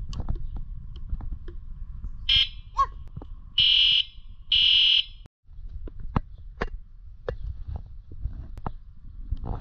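Electric scooter's electronic horn beeping: one short beep, then two longer high-pitched beeps. Light clicks of handling at the handlebar controls follow.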